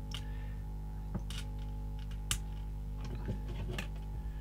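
Light plastic-and-wire clicks and taps as LED leads are pushed through the holes of a small kit circuit board and handled, about half a dozen scattered clicks, over a steady low electrical hum.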